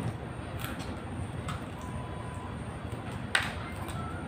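Biting and chewing crispy fried chicken: a few short crisp crunches, the loudest about three and a half seconds in, over a steady low background rumble.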